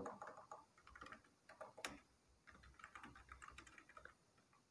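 Faint typing on a computer keyboard: a run of quick, irregular key clicks with short pauses between bursts.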